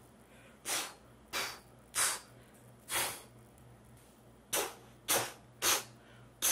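A series of short, sharp hits, about eight in six seconds and unevenly spaced: sound effects of blows in a violent fight.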